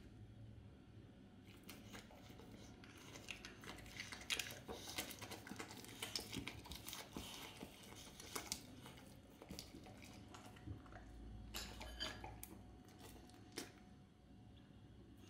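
Boxer dog licking ice cream off a spoon: a run of small wet licks and lip smacks starting about a second and a half in, thickest in the middle, with a few more later on.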